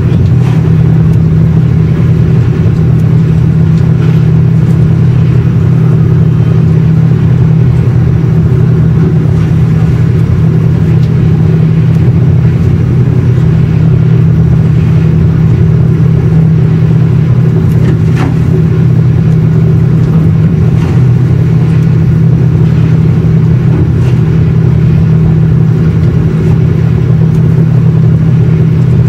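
Steady, loud low drone of a high-speed ferry's engines under way, heard from inside the passenger cabin.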